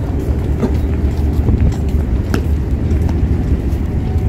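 Steady low rumble of street traffic, with a few short clicks scattered through it.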